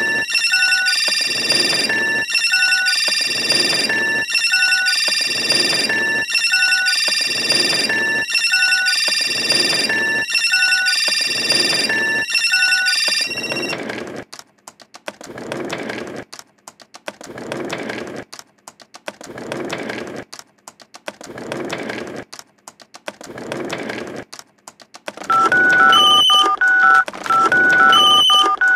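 Electronic soundtrack built from telephone-like beeps. First comes a steady high chord with short beeps repeating in a loop. About halfway through, this gives way to regular scratchy pulses a little over a second apart, and near the end a new pattern of quick beeping tones starts.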